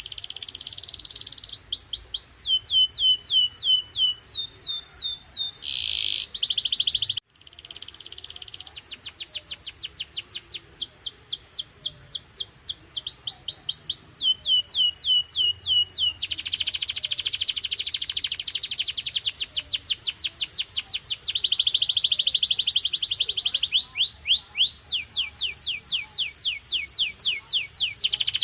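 Domestic canary singing: rolls of repeated falling whistled notes that speed up into a fast, dense trill from about the middle, then slow back to separate falling notes near the end, with a brief break about a quarter of the way in.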